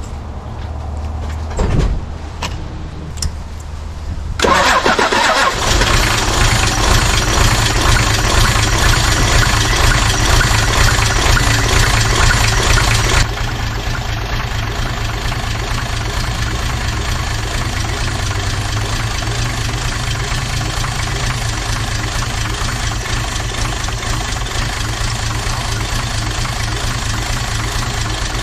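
Turbocharged Toyota 2H straight-six diesel starting suddenly about four seconds in, running loud for several seconds, then settling to a quieter steady idle about halfway through. The engine is running with its number one cylinder not pulling its weight, which the owner suspects is broken rings.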